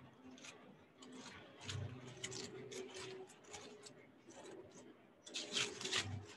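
Product packaging being handled: scattered light clicks and rustles, with a denser, louder burst of crinkling and clicking about five seconds in and a couple of soft thumps.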